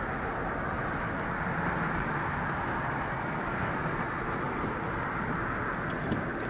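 Steady rumble and hiss of a car's interior, the even road and engine noise heard inside the cabin.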